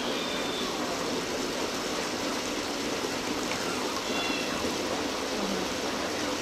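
Steady ambient rushing noise, with a few faint high chirps about four seconds in.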